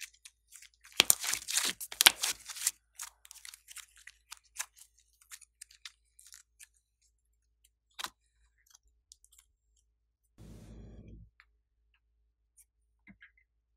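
Pink glossy slime being stretched and pulled apart by hand, giving a burst of sticky crackling pops about a second in, then scattered small pops and clicks.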